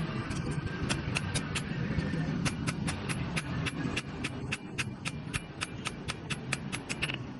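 Hammer striking steel in a quick, even rhythm of about four to five blows a second, after a few scattered strikes in the first two seconds, over a steady low background rumble.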